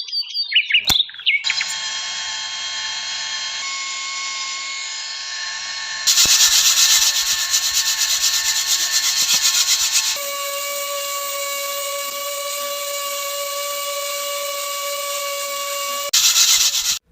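A small power tool running and working material, with a steady motor whine, in several cut-together clips. It works harder, with a rapid grinding rasp, from about six to ten seconds in and again near the end.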